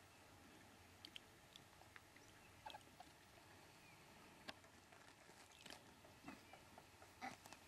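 Near silence: faint outdoor ambience with scattered soft clicks and a few faint, short chirps.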